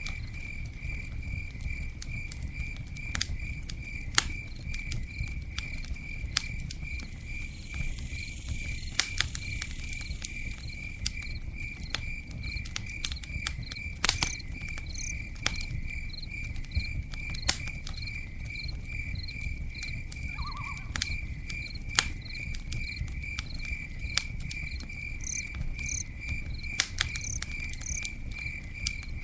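Campfire crackling, with scattered sharp pops over a low steady rumble of burning wood; one pop about 14 seconds in is the loudest. A cricket chirps in a quick, even rhythm of about two to three chirps a second.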